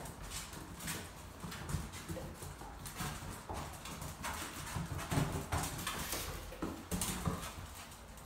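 Dogo Argentino puppies' claws clicking and scuffling on a vinyl plank floor as they scamper and play-fight, in quick irregular taps.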